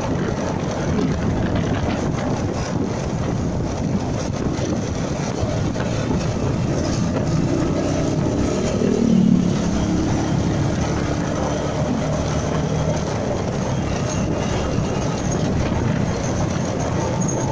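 Motorcycle riding at moderate speed in traffic: a steady mix of engine and road noise, with a brief louder, changing engine note about nine seconds in.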